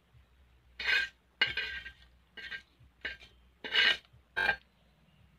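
Metal spatula scraping a blackened pan six times in quick short strokes, pushing hot tempering of oil, mustard seeds and curry leaves out of it.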